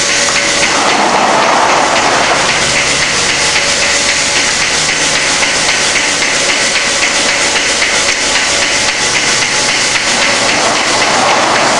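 Milking parlour machinery running: a loud, steady hiss from the milking system with a regular clicking rhythm from the milking-machine pulsators.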